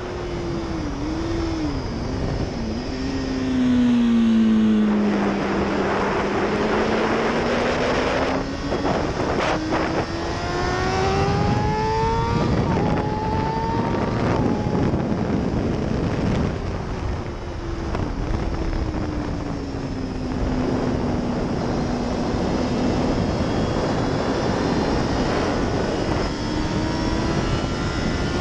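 Kawasaki ZX-6R 636's inline-four engine with an Akrapovic exhaust, ridden hard on track: quick throttle blips on downshifts in the first few seconds, then a long climb in revs under acceleration with a gear change, followed by a slow fall as it slows into a corner and a fresh rise near the end. Wind rushes steadily over the microphone throughout.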